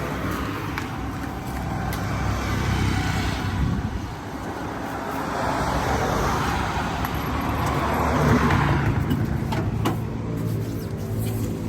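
Street traffic: engines humming, with vehicles swelling past twice. A few sharp clicks come near the end.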